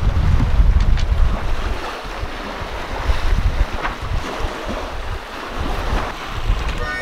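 Wind buffeting the microphone in gusts, coming and going as a low rumble, over the steady wash of waves against a sailing yacht's hull under way.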